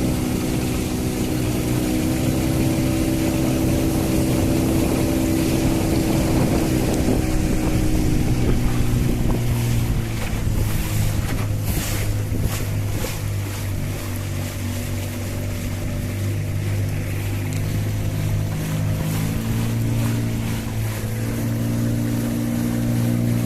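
Outboard motor of a small boat running steadily underway, its engine note easing down about ten seconds in and picking up again near the end, with wind buffeting the microphone and water rushing past the hull.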